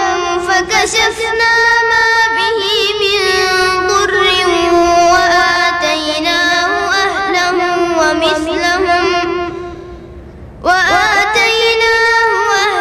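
A high voice singing a slow, unaccompanied devotional melody, holding long notes with a wavering ornament. The singing fades away about ten seconds in and starts again a moment later.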